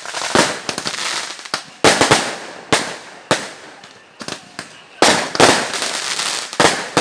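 Fireworks going off: a string of loud, sharp bangs at irregular intervals, each trailing off into crackling, with a quick cluster of smaller pops a little past the middle.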